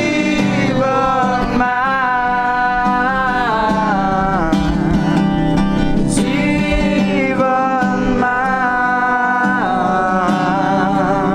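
A group of people singing a Nepali song together to acoustic guitar, with long held notes.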